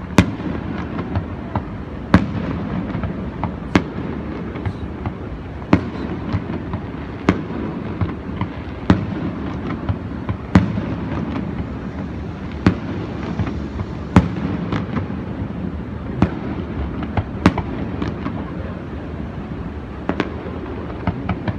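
Aerial fireworks shells bursting, a sharp bang every second or two, some louder than others, over a steady low background noise.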